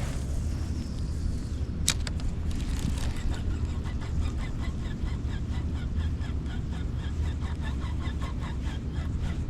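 A steady low rumble, with a sharp click about two seconds in, and from about three seconds in a fast, even run of short high ticks.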